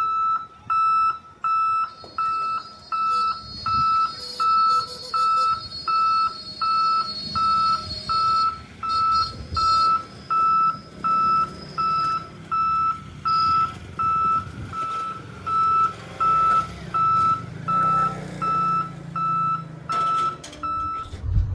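Level-crossing warning beeper sounding a steady, evenly repeated high beep, about one and a half beeps a second, signalling that a train is approaching the closed gate. A low rumble runs underneath.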